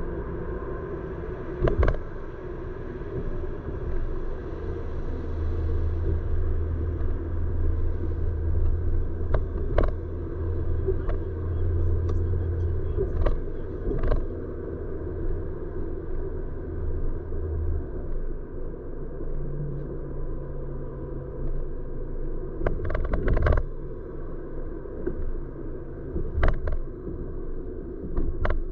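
Car driving on city roads, heard from inside the cabin: a steady engine and tyre drone, with a deeper hum through the middle stretch. A scattering of short knocks and rattles comes through, several in quick succession about 23 seconds in.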